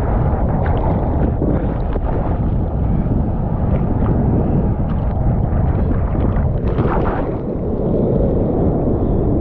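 Wind buffeting the microphone: a loud, steady low rumble with no let-up.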